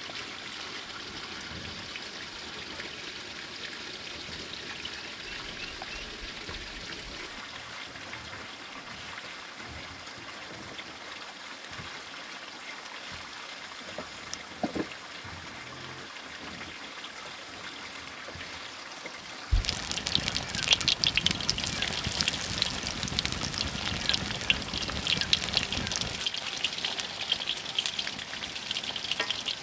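Steady trickle of running water; about two-thirds of the way through, a louder, dense crackling spatter starts suddenly.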